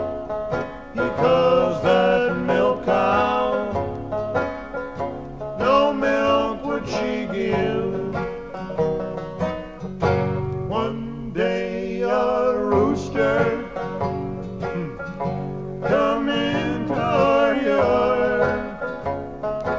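Country-bluegrass song recording with banjo and acoustic guitar picking steadily.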